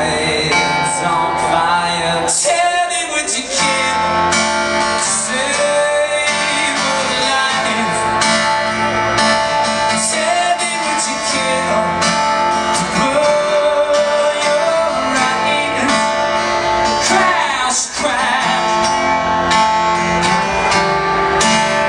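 Live music: a strummed acoustic guitar with singing.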